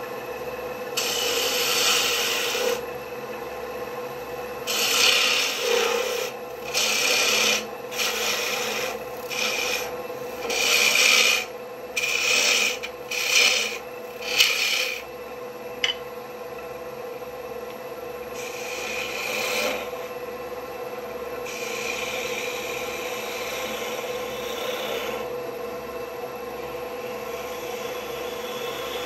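Wood lathe running with a steady hum while a turning tool cuts the spinning black walnut handle blank: a series of hissing, scraping cuts of a second or two each, coming thick and fast in the middle, then fewer and softer toward the end.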